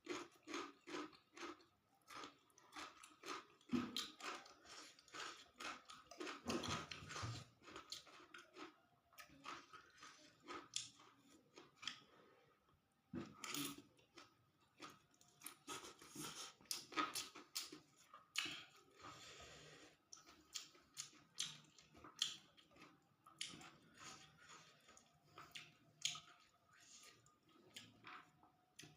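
A person chewing and eating fried rice vermicelli with tofu and water spinach: a continual run of faint wet mouth clicks and smacks, several a second.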